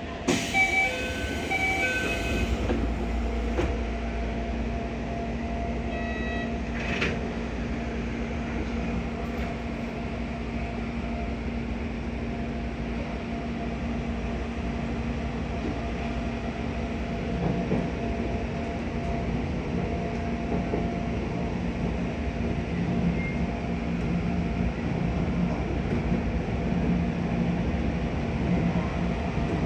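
Toei 10-000 series electric train pulling away and running, heard from the driver's cab: a quick series of short electronic chime tones at the start, a brief tone and a click about seven seconds in, then steady running noise with a low motor hum.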